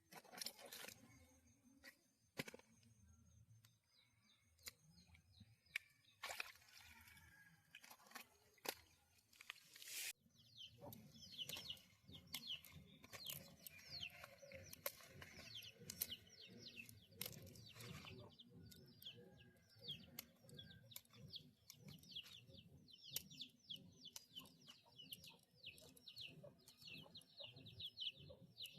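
Faint scattered rustling and knocks for the first ten seconds, then a steady run of quick, high, falling bird chirps that keeps going.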